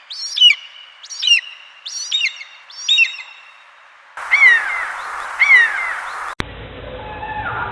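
A bird calling repeatedly with short, high calls that rise and then drop, about one a second. After about four seconds a second recording gives two more falling calls. A different sound with a low hum follows near the end.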